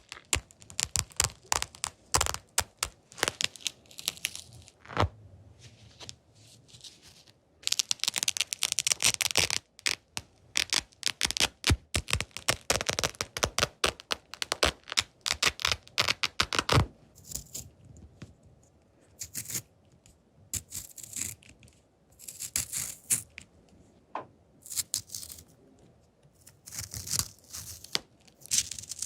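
Close-miked ASMR triggers: quick irregular tapping and clicking on objects, broken by bursts of scratching and crinkling.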